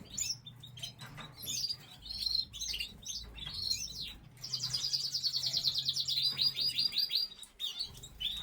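Canaries singing: a string of varied chirps, then a fast rolling trill of rapidly repeated notes about halfway through, then a few scattered notes.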